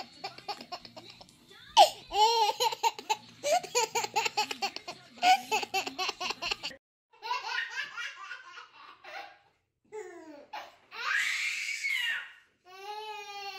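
Babies laughing hard in repeated bursts of belly laughter, with a brief pause about seven seconds in.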